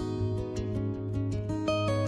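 Background music: plucked acoustic guitar over a steady bass line.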